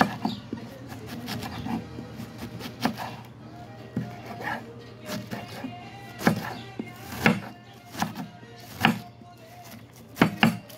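Kitchen knife shredding a head of cabbage on a wooden cutting board: sharp knocks of the blade through the leaves onto the board at an uneven pace, about one a second.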